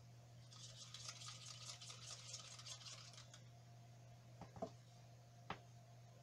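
Faint handling noise of plastic paint cups: about three seconds of quick, light scratching, then a few small separate clicks as cups are picked up and set down, over a steady low hum.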